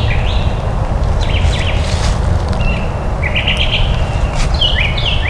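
A songbird singing short, high phrases again and again, several in a few seconds, over a steady low rumble.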